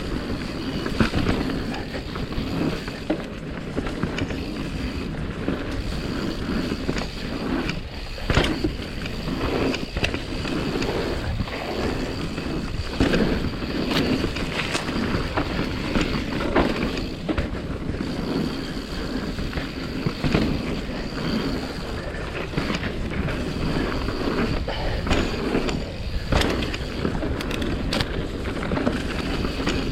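Mountain bike riding down a dirt trail: tyres rolling over dirt, with frequent knocks and rattles from bumps.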